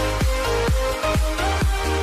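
Electronic dance music with a steady kick drum about twice a second over held synth notes.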